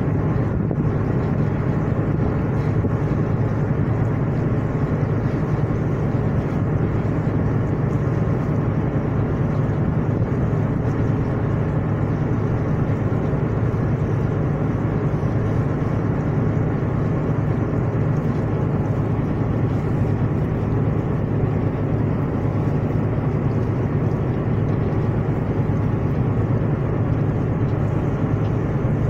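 Ship's engine and machinery running with a steady low drone.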